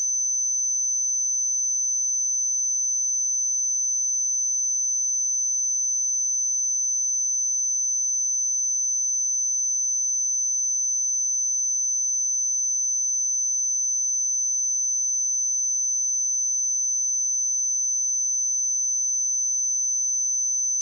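A pure 6106 Hz sine-wave test tone: one steady, high-pitched electronic tone held at constant pitch and level.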